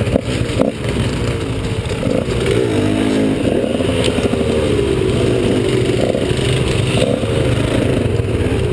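KTM 150 XC two-stroke dirt bike engine running close up, its pitch rising and falling with the throttle, with other dirt bikes running just ahead. A few sharp knocks come in the first second.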